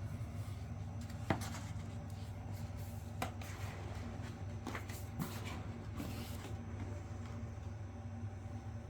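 A few scattered knocks and clicks of objects being handled, over a steady low hum.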